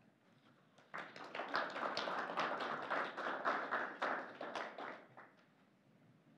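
Audience applauding: a dense patter of hand claps that starts about a second in and dies away after about four seconds.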